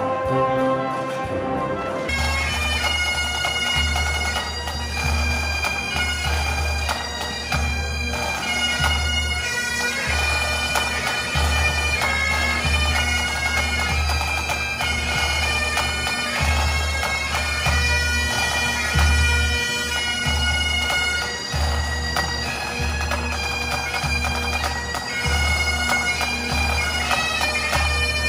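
Highland pipe band playing: bagpipes over a steady drone, with snare drum and a bass drum beating a regular pulse beneath. The pipes cut in about two seconds in, replacing a brass band piece.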